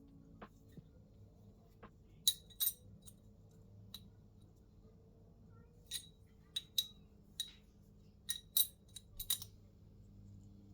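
Light metallic clinks, about ten in all: a pair a couple of seconds in, then a run of sharp ringing taps from about six seconds to nine and a half. They come from steel scissor-gear parts for a Toyota 3UZ-FE camshaft being handled and fitted together.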